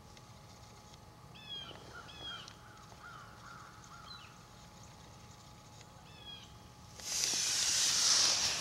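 A few short, harsh bird calls scattered through the first six seconds. About seven seconds in, a much louder rustling noise starts and lasts to the end: the camera being handled against the pop-up blind's fabric.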